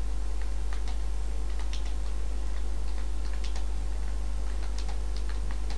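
Computer keyboard keys clicking in short, irregular strokes as a message is typed, over a steady low electrical hum.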